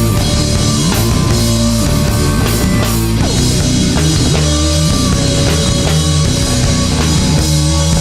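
Rock band playing an instrumental passage between vocal lines, with electric guitars, bass and drum kit.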